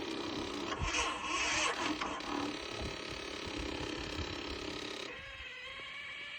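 Yamaha V Star 950 motorcycle cranking on its electric starter without the engine catching: a steady whine with a louder rush in the first couple of seconds, cutting off suddenly about five seconds in. The bike is failing to start.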